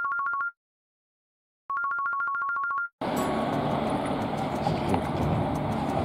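Electronic trill like a telephone ringtone: two high tones alternating rapidly, sounding twice for about a second each with a second of silence between. About three seconds in, steady street background noise returns.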